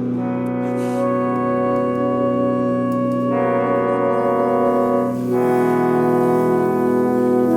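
Slow background music of long held chords over a steady low drone, the chord changing three times.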